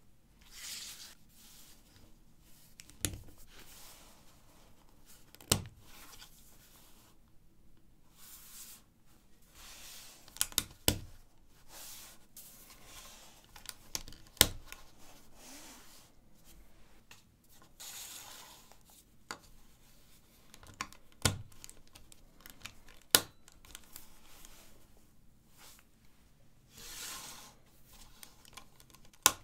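LEGO 1×4 and 1×6 plates being handled and pressed together. Sharp plastic clicks as plates snap onto studs come every few seconds, with soft brushing sounds of fingers sliding and sorting the plates between them.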